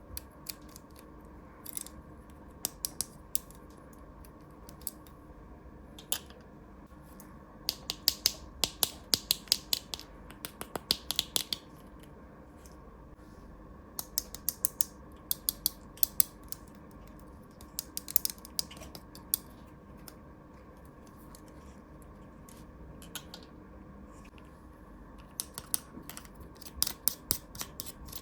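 Sharp clicks and taps of small plastic toy pieces being handled, in quick bursts with pauses between them, over a faint steady hum.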